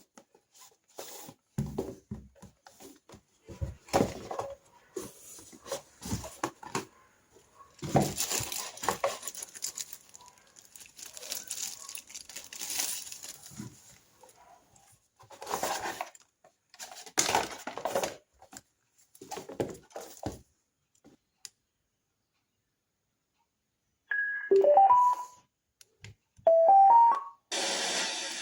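Irregular knocks, clicks and rustles of a small plastic gadget being handled for about twenty seconds. After a pause, a HAVIT M3 alarm clock speaker plays short runs of electronic beeps climbing in pitch, twice, near the end.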